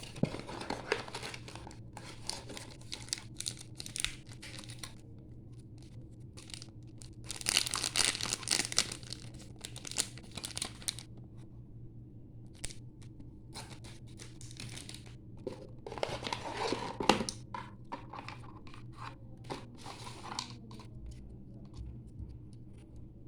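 Packaging of a mobile phone being handled and opened: plastic and paper crinkling and tearing, with many small handling clicks and two louder stretches of crackling, over a faint steady hum.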